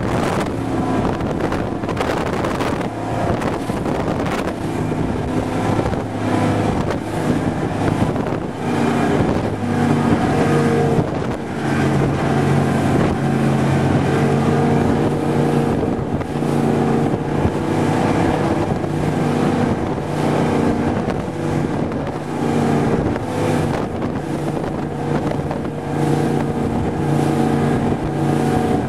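Raider 26 powerboat's 460 cubic-inch Ford big-block V8 running hard through its Volvo Penta DPX sterndrive at speed, its engine note holding fairly steady with a couple of brief dips. Wind buffets the microphone over the rush of water.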